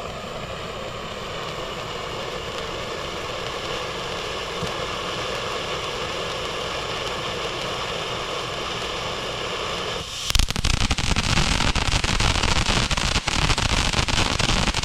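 A 200-gram fountain firework spraying with a steady hiss, which about ten seconds in abruptly turns louder into dense crackling that goes on to the end.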